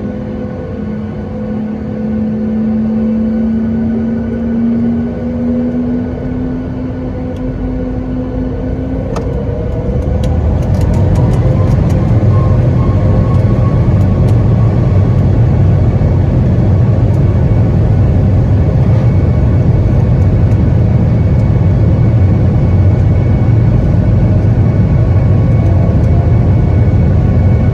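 Boeing 737 MAX 8's CFM LEAP-1B jet engines heard from inside the cabin. A steady hum about nine seconds in spools up to takeoff thrust: a rising whine over a loud low rumble from the takeoff roll, with a few light rattles just after.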